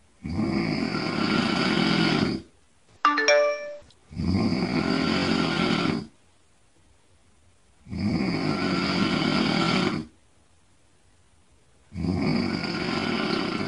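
Snoring: four long snores, each about two seconds, coming about every four seconds. Just after the first snore comes a brief ringing chime, the loudest sound.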